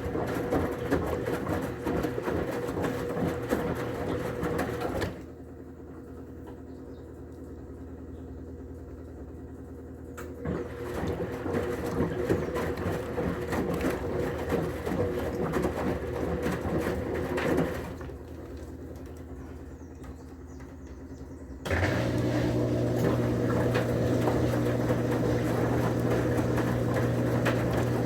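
Whirlpool Clean AWM 468 5 kg washing machine in its intermediate rinse: two spells of noisy mechanical running, each followed by a quieter pause, then, about three-quarters of the way in, a steady, louder motor hum starts abruptly and keeps going.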